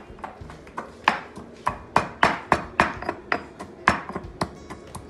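Pestle pounding in a cobek, a dark Indonesian mortar, in a steady run of sharp knocks, about three or four a second. The shallots, garlic and chilies are being crushed for the tahu gejrot seasoning.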